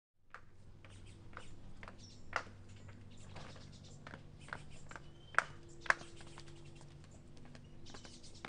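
Footsteps of sandals clicking on stone steps as someone walks down, about two steps a second, over a steady low hum.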